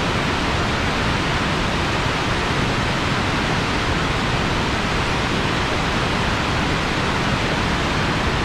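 Waterfall rushing with a loud, steady, even noise of falling water.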